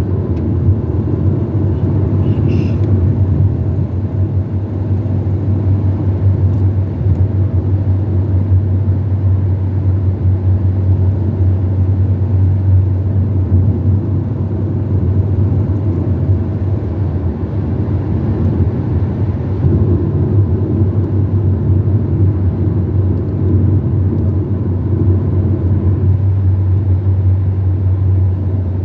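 Car driving along a road: a steady low engine and road rumble with no change in speed.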